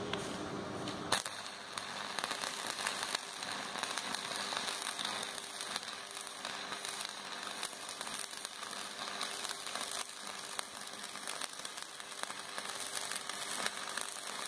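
Shielded metal arc (stick) welding with a flux-coated electrode: about a second in, the arc strikes, then crackles and sizzles steadily as the weld bead is laid. A low hum comes before the strike.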